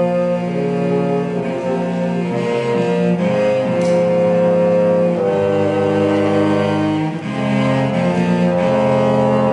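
Bassoon and cello playing a slow duet of long held notes, one line above the other, each note changing every second or two.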